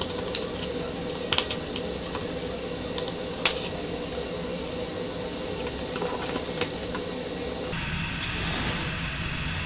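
Small clicks and taps from a precision screwdriver and hands working the plastic back of an LCD monitor as its screws come out and the case is opened, over a steady hiss. The sharpest click comes about three and a half seconds in.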